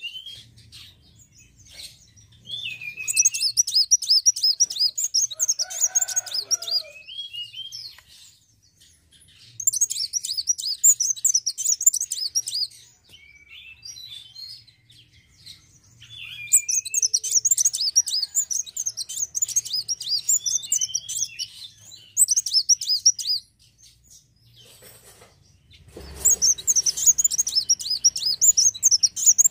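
A sunbird singing: four bursts of rapid, high twittering, each a few seconds long, broken by short pauses with a few single chirps.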